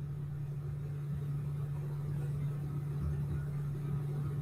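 Steady low hum with a faint hiss underneath, unchanging throughout.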